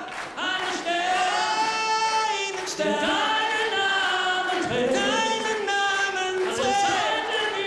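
Several voices singing a song together, with little instrumental backing.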